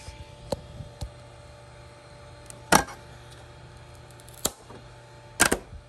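Handling knocks and clicks as a phone is set down and a printed part is worked off a flexible magnetic 3D-printer build plate. There are small clicks early on, then loud, sharp knocks about three, four and a half and five and a half seconds in, over a low steady hum.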